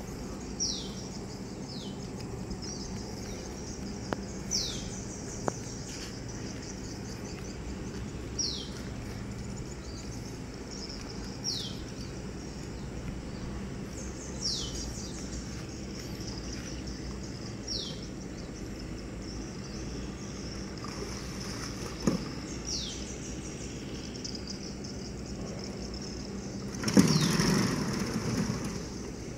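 A bird repeating a short, high whistle that falls in pitch, every one to three seconds, over a steady low hum. Near the end a louder rush of noise lasts about two seconds.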